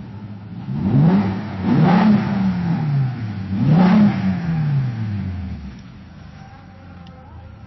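Car engine revved twice, each rev rising and falling back, then settling to a steady idle.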